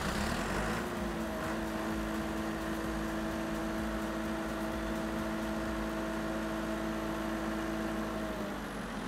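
Diesel generator engine just started from its reflashed DeepSea control module, picking up to a steady running speed in the first second and running evenly. Near the end its pitch falls as it winds down after being stopped at the controller.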